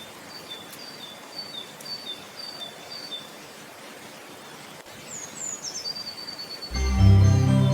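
Steady rush of a waterfall or stream, with a bird chirping short high notes over it, about two a second for the first few seconds, and a few falling high calls later. Near the end, louder organ-like keyboard music comes in over it.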